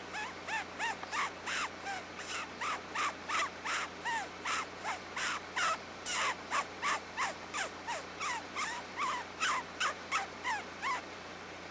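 A rapid, evenly spaced series of short harsh calls, about three a second, each rising and falling in pitch; the calling stops abruptly near the end.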